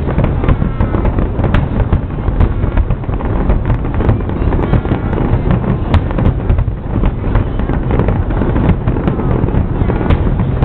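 Fireworks display: loud, continuous low booming with many sharp crackling reports a second.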